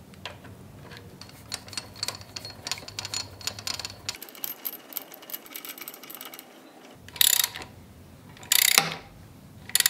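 Hand ratchet clicking in quick runs of fine ticks as it turns the screws of a Fiat MultiAir valve spring compressor tool, pressing the valve springs down to seat the valves. Two louder, longer bursts of noise near the end.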